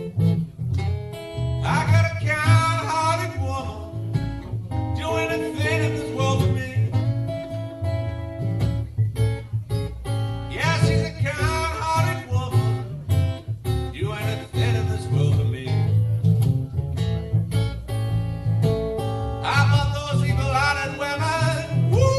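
Acoustic guitar, likely an Eastman E10OM, playing a Delta blues accompaniment, with a bending lead melody coming in and out in phrases over it.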